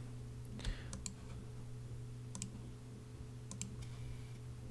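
Computer mouse clicking: a handful of sharp clicks spaced a second or more apart, several of them in close pairs, over a low steady hum.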